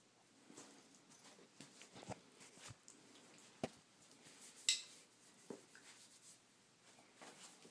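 Faint rustling, scraping and soft knocks of two Great Danes wrestling on a carpet, one lying on its back while the other paws and noses at it, with a sharp click a little past halfway.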